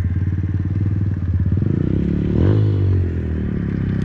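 Small pit bike engine idling with a fast, even firing beat, blipped once about two and a half seconds in so that it rises in pitch and drops back.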